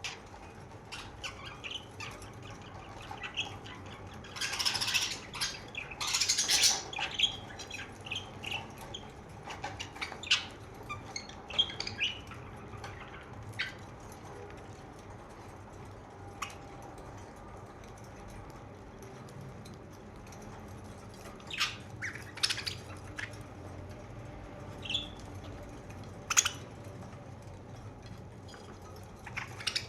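Pet budgerigars chirping and squawking in short scattered calls, with two louder harsh squawks about five and seven seconds in and a quieter spell in the middle.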